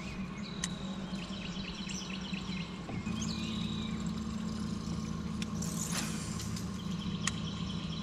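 Electric trolling motor on a bass boat humming steadily, stepping up to a higher, slightly louder hum about three seconds in as the speed is raised. Birds twitter over it, with a few light clicks.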